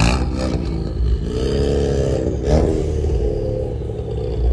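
A car engine being revved, its pitch rising and falling back twice over a steady low rumble, with a sharp crack about halfway through.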